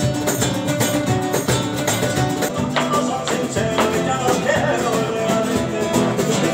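Music with strummed guitar and a steady rhythmic beat.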